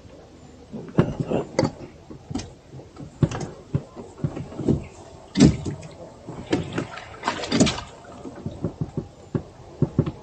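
A string of irregular knocks, taps and clatters from gear being handled in a small boat, such as a landing net and its frame knocking against the hull. The loudest knock comes about halfway through.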